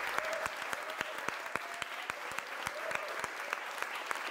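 Audience applauding, dense irregular claps with individual claps standing out.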